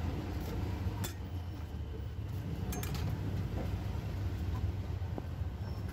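Metal utensils clinking sharply: once about a second in, then twice in quick succession nearly three seconds in, over a steady low rumble of street background.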